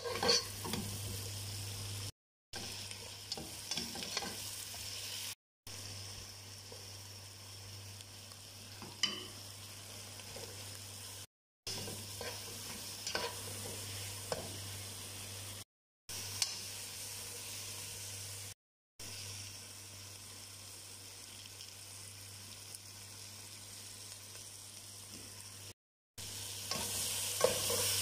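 Chopped onions and tomatoes sizzling as they fry in a pan, with a slotted spatula scraping and knocking against the pan as they are stirred. The sound drops out abruptly for short moments several times.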